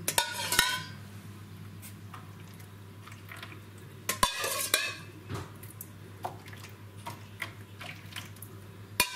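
A small glass cup clinking and scraping against a stainless steel pot in three short bursts of clatter with a brief ringing, about four seconds apart.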